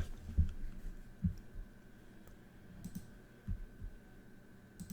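Scattered computer mouse clicks and soft knocks on a desk, a handful spread unevenly, with a faint steady high whine underneath.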